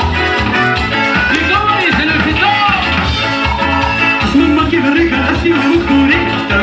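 A band playing upbeat Latin dance music, with a steady pulsing bass beat under melodic lines.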